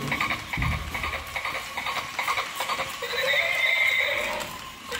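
Battery-operated dancing toy horse playing its built-in sounds through its speaker: a run of clip-clop hoofbeats, then a recorded horse neigh held for almost two seconds, starting about three seconds in.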